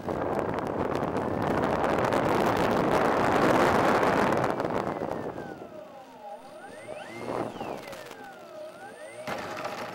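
Wind rushing over the model plane's microphone during a gliding descent, fading after about five seconds to the whine of the Slow Stick's electric motor, its pitch dipping and rising several times as the throttle is worked.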